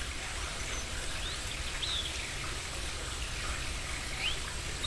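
A steady rushing hiss like running water, with a few short, high chirps that glide up or down, some in the middle and a couple near the end.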